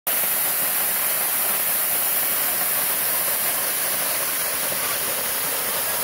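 Waterfall pouring down a rock face into a shallow pool: a steady, unbroken rush of falling water.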